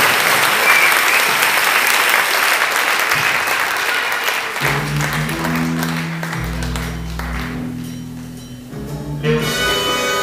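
Audience applauding, the clapping thinning out over the first four seconds or so. About four and a half seconds in, music starts over the hall's sound system with low held notes, and near the end a brighter, more richly layered tune begins.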